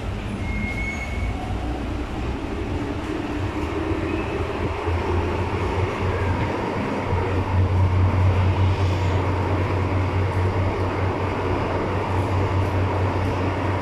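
Inside a Hong Kong MTR M-Train carriage pulling out of the station into the tunnel. The rumble of the train's running gear and motors grows louder as it picks up speed, with a deep steady drone and a faint steady high tone joining about halfway.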